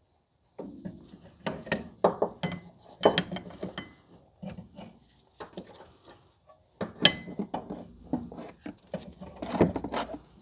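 Irregular metal clinks and knocks, some with a short ring, starting about half a second in, as the old rear brake caliper of a 2006 Mazda 3 is spun by hand off its flexible brake hose.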